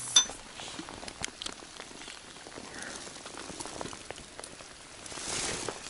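Steady rain falling on the water and the bank, with scattered drops tapping close by. A sharp click sounds just after the start, and the hiss swells briefly near the end.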